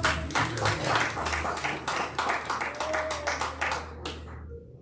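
A congregation clapping, quick and uneven, with a voice or two calling out over it. The clapping stops about four seconds in.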